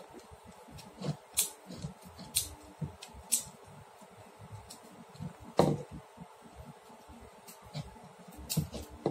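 Small clicks and taps from handling a spotlight bulb, its wire leads and a screwdriver while connecting the lamp, with one louder knock a little past halfway.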